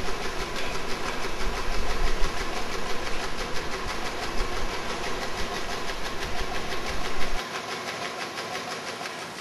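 Automatic high-speed tray padding machine running: a steady, fast, even mechanical clatter as styrene foam trays are carried through and padded. The low rumble drops away about seven seconds in, leaving a quieter clatter.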